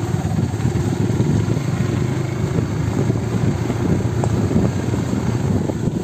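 Motorcycle engine running steadily under way, a rough, low drone.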